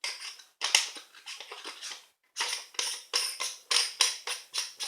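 Rapid, sharp metallic clicking, about four or five clicks a second with two short pauses, as a metal part of a 400mm telephoto lens is turned back into place by hand during reassembly.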